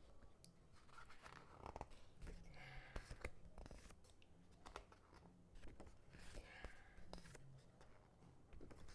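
Soft crinkling and rustling of paper and plastic packaging being handled and unwrapped, with scattered light taps and clicks.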